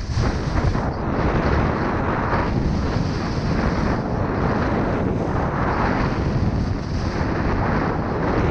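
Wind buffeting a GoPro's microphone during a fast ski descent, a dense low rumble, mixed with the rasp of K2 skis on firm, tracked snow that swells and eases with each turn.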